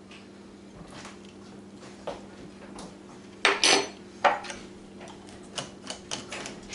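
A shot glass and a metal spoon set down on a wooden tabletop: sharp knocks and clinks, the loudest about three and a half seconds in, with another just after four seconds. Lighter clicks and taps follow near the end as a glass bottle is handled.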